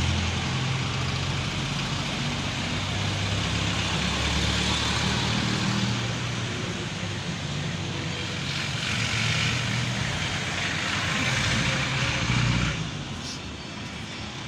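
Road traffic: motor vehicles' engines humming and tyre noise. It swells twice as vehicles pass and drops off sharply near the end.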